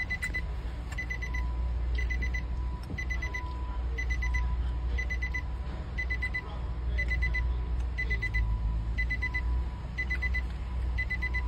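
Electronic warning chime inside a vehicle's cabin, repeating about once a second: a quick run of high pips alternating with a lower beep, over a steady low rumble.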